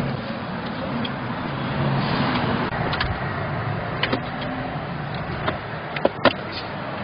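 Mechron 2450 utility carrier running, a steady engine hum with a hiss over it, broken by a few sharp knocks or clatters about three seconds in and again near the end.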